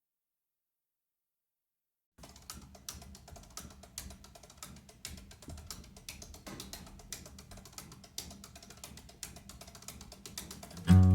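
Silence for about two seconds, then a run of irregular light clicks and knocks. Near the end, loud acoustic guitar music starts abruptly.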